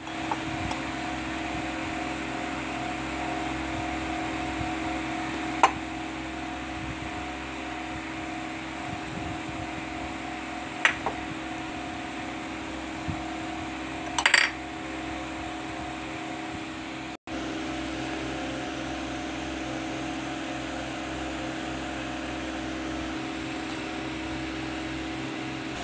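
Steady mechanical hum with a couple of level tones, like a kitchen fan or appliance. It is broken by a few sharp clinks: one about five and a half seconds in, two close together near eleven seconds, and a short rattle of clinks near fourteen seconds.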